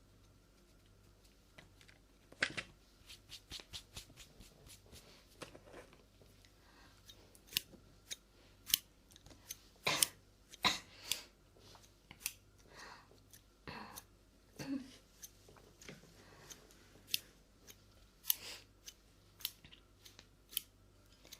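Scissors snipping for an ASMR haircut sound: a long run of irregular, short, sharp snips, loudest about ten seconds in.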